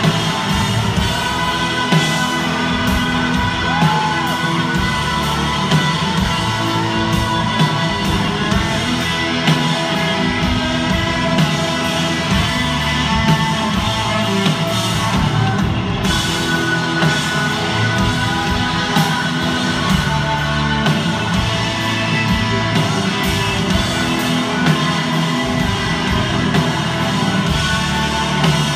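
Live rock band playing loud and steady: electric guitars over a drum kit.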